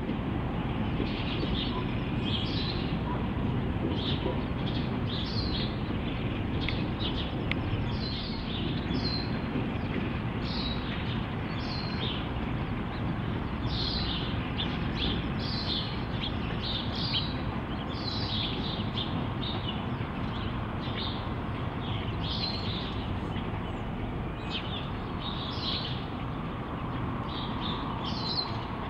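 Small birds chirping repeatedly, short calls a few to a second, over the steady low rumble of a log train with two diesel locomotives moving slowly away.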